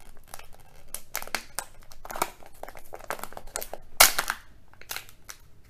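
Foil wrapper of a Kinder Joy egg crinkling as it is unwrapped by hand: irregular crackles, the loudest about four seconds in.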